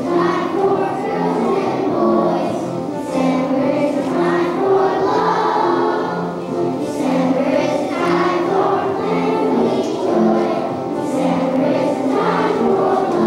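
A choir of young children singing a song together, their notes following one another in an even rhythm.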